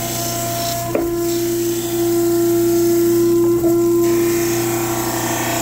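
Surface grinder grinding the face of a Foster Featherweight prism under flood coolant: a steady hum from the machine with a grinding and coolant hiss that swells and fades. A short knock about a second in and again about three and a half seconds in.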